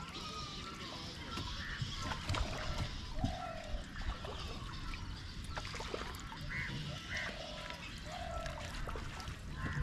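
A fishing net pulled in by hand over the side of a wooden outrigger canoe: water trickles and drips off it, with scattered clicks and knocks against the boat. A bird gives short calls again and again, a second or two apart.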